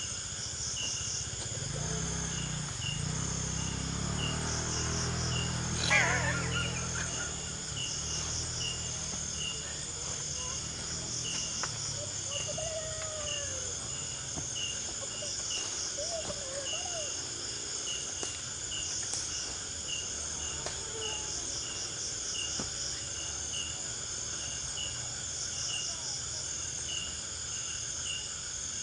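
Night insects such as crickets chirping steadily: a chirp repeating about once a second over a higher, pulsing trill. A low rumble runs through the first several seconds, and a brief sharp sound comes about six seconds in.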